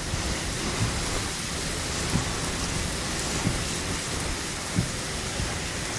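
Hurricane-force wind and heavy rain beating on a truck in a strong squall, a steady rush of noise broken by a few brief low thumps.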